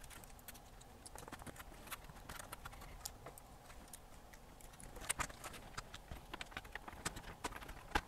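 Faint, irregular small clicks and taps from handling the Sony ICF-2010's circuit board and ribbon cables inside its plastic case as the ribbon cables are reseated. The clicks grow more frequent from about halfway through.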